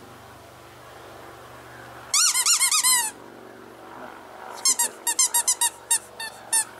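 Squeaky rubber dog toy squeezed by hand: a quick run of squeaks about two seconds in, then about ten separate squeaks near the end, each a short rise and fall in pitch.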